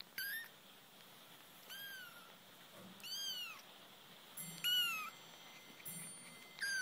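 Kittens mewing: five short, high-pitched mews about a second and a half apart, each rising and then falling in pitch.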